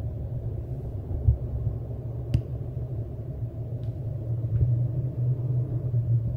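A low, steady rumble with a sharp click about two and a half seconds in and a couple of fainter clicks later.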